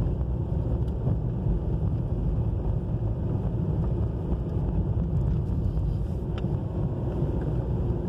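Steady low rumble of a car driving along an unpaved dirt road: tyre and road noise with the engine running underneath.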